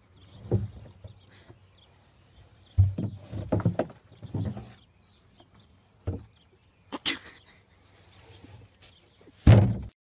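A plastic feed tub knocking and bumping against a wooden fence rail as a Hereford calf butts and tosses it with its head. The knocks come a few at a time, with the loudest thud near the end.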